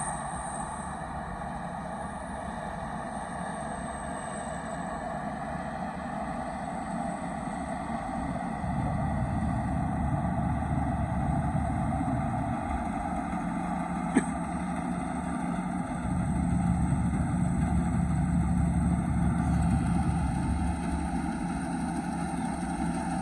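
A rice combine harvester's turbo engine runs steadily with a constant mechanical drone. A heavier, deeper rumble swells in twice, about nine and sixteen seconds in, as the machine works under load. A single sharp click comes about fourteen seconds in.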